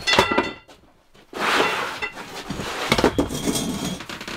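A folding camp cot being unfolded: its metal frame parts clink against each other with a short ringing, and its fabric rustles. A burst of clinks comes at the start and a few more about three seconds in.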